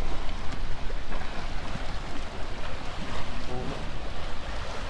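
Wind buffeting the microphone, a steady low rumble, over the wash of surf against the pier pilings, with faint voices in the background.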